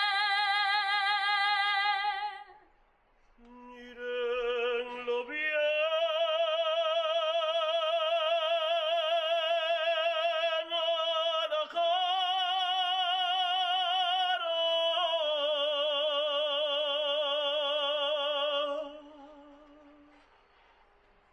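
A woman singing a saeta unaccompanied: one voice holding long, ornamented notes with a wide vibrato. It breaks off briefly about three seconds in, then carries a long closing phrase that ends a couple of seconds before the end.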